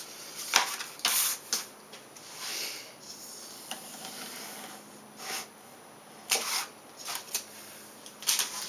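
Contact paper crinkling and rustling as it is handled, with an X-Acto knife scraping and slicing through the paper along the edge of a foam wing, in a series of short crackles and scrapes.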